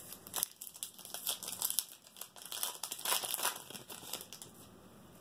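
Wrapper of a 2011 Press Pass Elements trading card pack crinkling and tearing as it is opened by hand, in irregular crackles that stop about four seconds in.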